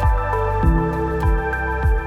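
Background music: a calm new-age track with held synth notes over a soft, steady beat of about two beats a second.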